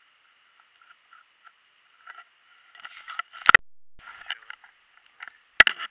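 Two sharp knocks against a plastic kayak hull, one about three and a half seconds in and a louder one near the end, as a freshly caught sunfish is dropped into the kayak and flops. Faint crackling runs between them.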